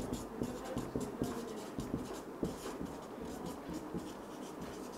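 Marker pen writing on a whiteboard: a run of short, irregular scratching strokes as letters are written.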